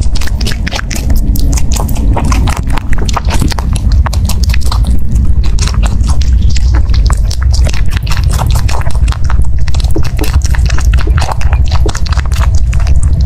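Rabbit chewing dried figs close to the microphone: rapid, dense crunching clicks over a steady low rumble.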